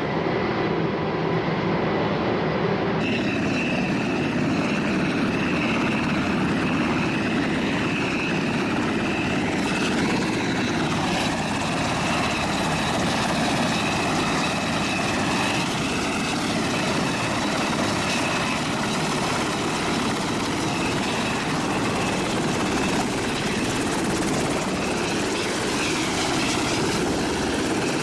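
MH-60S Seahawk helicopter running, a steady dense engine and rotor noise with a high turbine whine that comes in about three seconds in.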